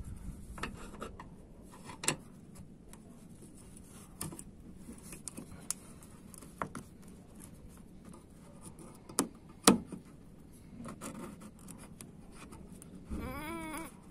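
Scattered light clicks, scrapes and clinks of a spanner being worked on a car's front-bumper bolts, with two sharper metallic knocks about nine to ten seconds in. A brief wavering pitched sound comes near the end.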